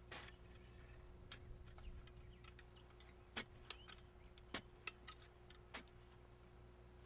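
Sharp knocks of a long-handled digging tool working the soil: three strong strikes a little over a second apart, with lighter clicks between, over a faint steady hum.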